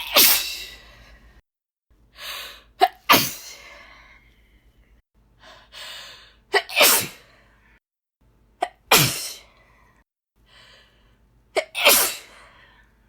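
A woman's deliberately performed sneezes in the 'hh'ESCHH!' style, five times about three seconds apart. Each one starts with a short breath in and a sharp catch, then a loud, hissing 'ESCHH' burst that tails off.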